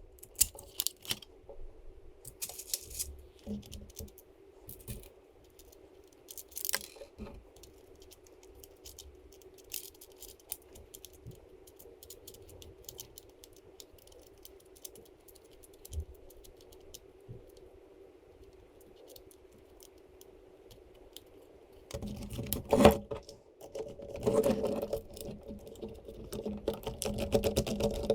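Small hard parts clicking and rattling as they are handled during assembly, over a steady low hum. The clatter grows louder and busier near the end.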